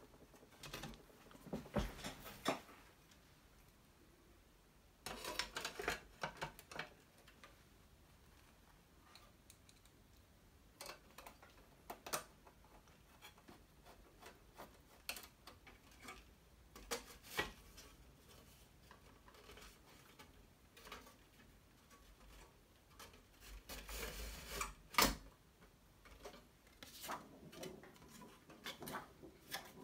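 Faint handling noise of a Macintosh Plus's circuit board and sheet-metal chassis parts being fitted back together: scattered clicks, knocks and rubbing in short clusters a few seconds apart, the loudest knocks near the end.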